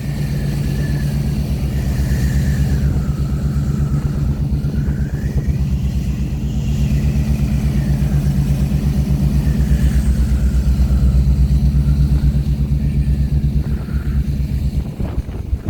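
A boat's engine running steadily with a rapid low throb, over wind and water noise, with a faint whine that slowly wavers up and down in pitch.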